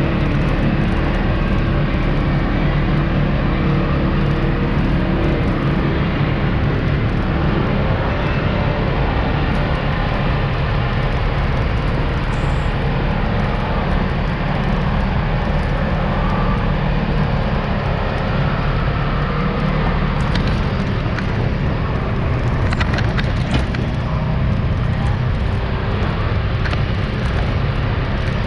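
2017 Polaris RZR High Lifter 1000's parallel-twin engine running steadily under way, with tyre and wind noise on a dirt road. A few short clicks come through about two-thirds of the way in.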